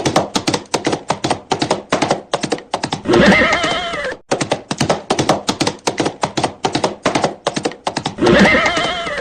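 Galloping horse sound effect: a fast, rhythmic run of hoofbeats, broken twice by a long, wavering whinny, about three seconds in and again near the end, where it cuts off suddenly.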